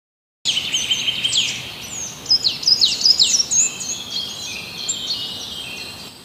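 Wild birds calling and singing: a busy run of quick, high whistled chirps and trills with several sharp downward-sweeping notes, starting abruptly about half a second in.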